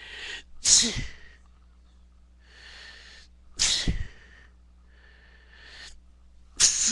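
A person sneezing three times, about three seconds apart, each sneeze loud and sudden after a breathy in-breath; the sneezes are set off by loose dog hair tickling the nose.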